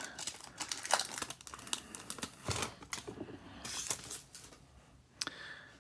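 Foil wrapper of a Topps Chrome baseball card pack crinkling and tearing as it is pulled open by hand, a dense crackle over the first couple of seconds that thins to a few scattered crinkles later.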